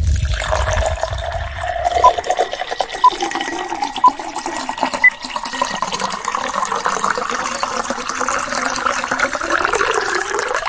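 Liquor poured from a bottle into a glass over ice: a continuous splashing pour whose pitch creeps upward as the glass fills. A low rumble fades out in the first two seconds, and there are four short clicks about a second apart in the first half.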